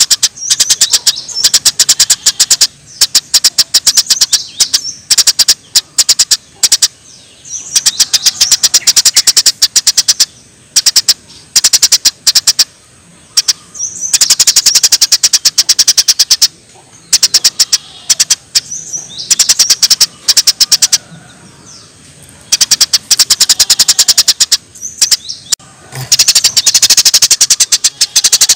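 Small songbird's rapid-fire 'tembakan' song from a bird-song training recording: bursts of fast, evenly repeated sharp high notes lasting a second or two each, with short pauses between them. A faint flowing-water sound runs underneath.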